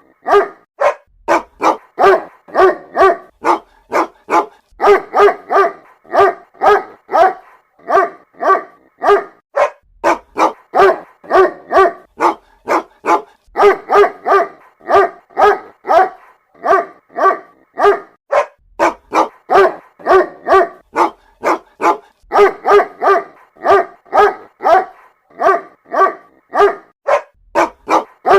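Dog giving short, pitched barks, about two a second in runs of several with brief pauses between, presented as a mother dog calling her puppies.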